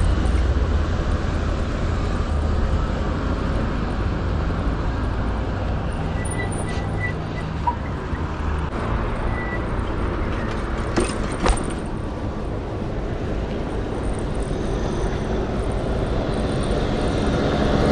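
Road traffic on a city street heard from a bicycle, a steady low rumble with cars going by. Two sharp clicks come about two-thirds of the way in, and a vehicle passing close swells up at the very end.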